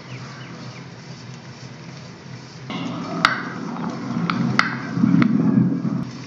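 Steady low background rumble that grows louder a little under halfway through, with four sharp clicks or taps over it in the second half.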